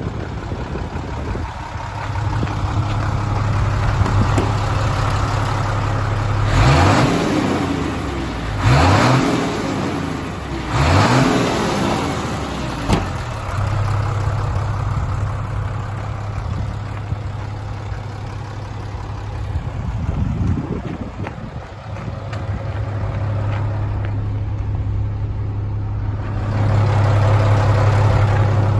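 Mitsubishi Fuso 6D16 inline-six diesel engine idling steadily, revved up and back down three times in quick succession a few seconds in, then settling back to idle.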